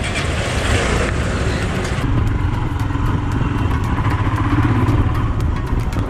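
Royal Enfield Himalayan's single-cylinder engine running at low speed, heard from the rider's seat as the bike moves off into slow traffic, getting a little louder over the first couple of seconds.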